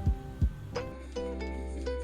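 Background music: plucked string notes over a steady low bass, with two low drum thumps in the first half-second.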